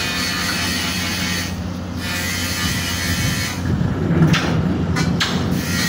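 Steady hum of running welding equipment under a broad hiss, with a few short knocks about five seconds in.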